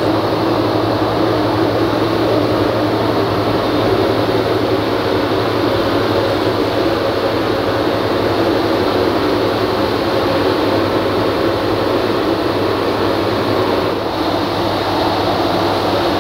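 Wieland FS-216 industrial wet-and-dry vacuum running steadily, with a constant low hum under the rush of air, its hose sucking up metal chips and coolant from a machine tool's table.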